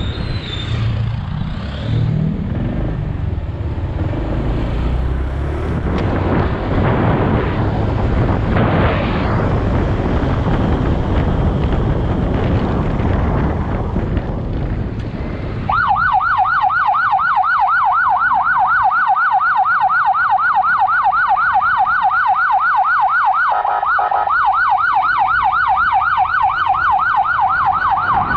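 Road and wind noise, then about sixteen seconds in an electronic emergency siren comes on loud in a fast yelp, its pitch sweeping up and down several times a second.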